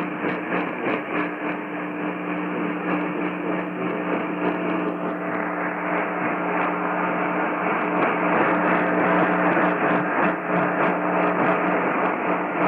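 AM radio reception with no programme: a steady hiss with a low hum and a crackle of static clicks several times a second, growing a little louder about halfway through. This is the dead air of an Emergency Alert System test relayed with no spoken message.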